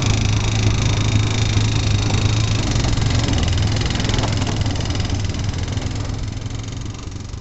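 Yamaha quad bike (ATV) engine running steadily with a deep, even hum while riding along a paved lane; the sound fades out near the end.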